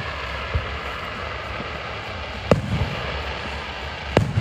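Fireworks going off: two sharp booms about two and a half and four seconds in, and a softer thump shortly after the start, over a steady hiss of outdoor noise.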